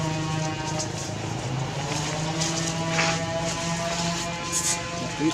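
Steady mechanical drone of a running motor or engine, holding several even tones without change. A short crackle comes about three seconds in, and a brief hiss near the end.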